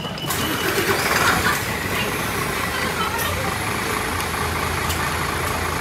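A large vehicle's engine idling steadily with a low hum, which grows a little stronger about four seconds in.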